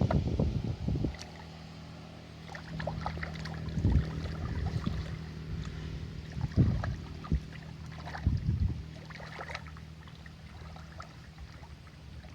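Wind gusting on the microphone over water, then a faint steady low hum with scattered small knocks and splashes.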